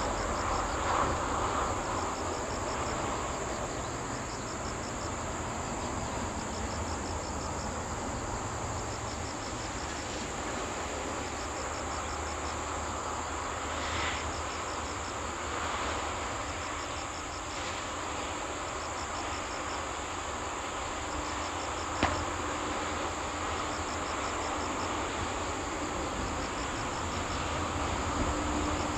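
Insects chirping in short pulsed trills that repeat every second or two, over a steady low rumble. A single sharp click about 22 seconds in.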